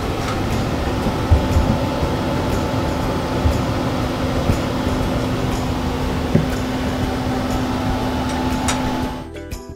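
Louisiana Grills SL700 pellet grill's combustion fan running with a steady hum during start-up, the igniter on, with a few faint clicks. It gives way to light music near the end.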